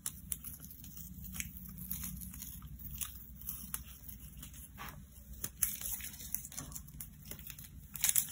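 Tape being peeled slowly off the edge of watercolour paper, a faint, uneven crackle of small ticks, with a louder rasp near the end.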